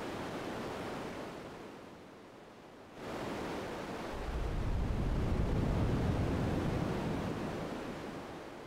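Synthesized ocean surf from filtered white noise in a modular software synth patch, swelling and ebbing like waves. The noise thins out about two seconds in, surges back a second later, and builds into a deep, low swell from about four seconds in before fading near the end.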